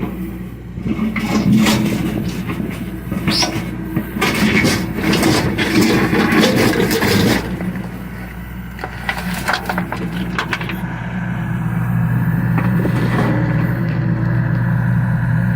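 John Deere excavator's diesel engine running steadily, with the scraping and knocking of the bucket working soil for about six seconds, then again briefly. The engine grows louder near the end.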